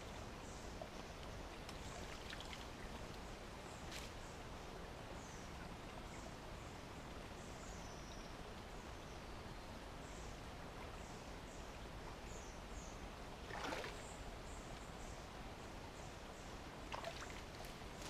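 Quiet streamside ambience: a faint steady hiss of slow-moving brook water with small birds chirping now and then. About fourteen seconds in comes a short scuffling noise as someone works among the branches in the water.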